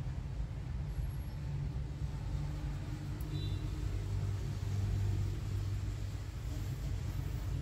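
Low steady rumble of a motor vehicle's engine, swelling a little about four to five seconds in.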